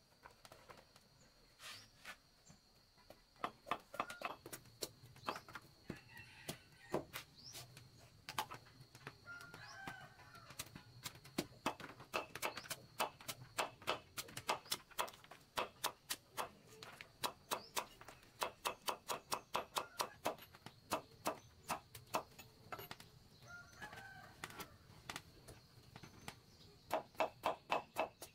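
Large knife chopping a papaya on a stone block: each cut ends in a sharp knock of the blade on the stone, in irregular runs that turn into a quick series of about five chops a second near the end. Chickens call a few times in the background.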